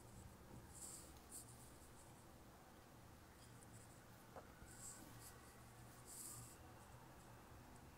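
Near silence: room tone with a steady low hum and a few faint, brief rustles.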